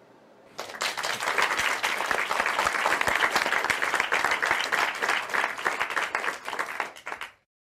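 Applause: many hands clapping together, starting about half a second in and cutting off abruptly near the end.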